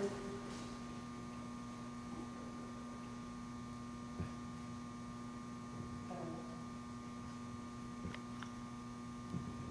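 Steady electrical hum, with a few faint short knocks.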